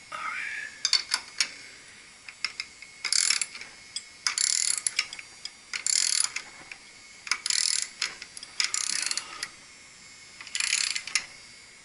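Hand ratchet being cranked in short strokes: about six bursts of rapid clicking on the return swings, with quiet pulls between them, plus a few separate clicks.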